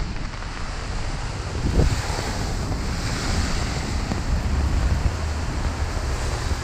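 Strong wind buffeting the camera microphone in a low, gusty rumble, over a steady hiss of rain on a wet street that grows brighter about two seconds in.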